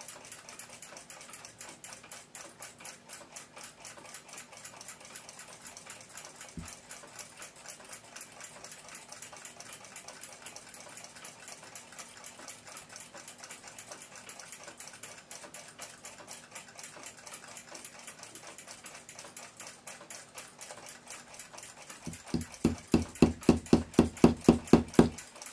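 Faint, fast, even ticking for most of the time, then near the end a quick run of about fifteen hammer taps, growing louder, each with a short ring: a small ball-peen hammer striking a pin to drive a clock's steel gong rod into its brass mounting block on a steel block.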